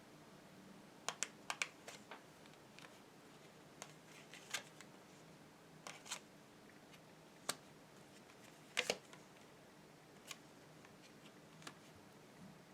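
Tarot cards being handled and laid on a table: about a dozen light, irregular clicks and taps, the loudest pair about nine seconds in, over a faint room hum.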